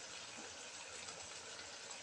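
Chicken pieces simmering in broth in a wok, a faint steady hiss.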